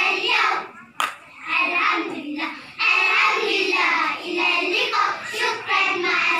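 A chorus of young children chanting Arabic in unison, in phrases of about a second with short breaks between them. There is one sharp smack about a second in.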